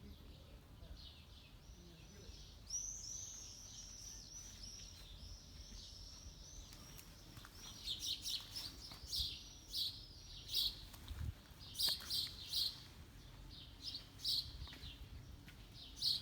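Small birds chirping in short high calls, a quick run of repeated notes at first, then louder separate chirps coming thick from about halfway through.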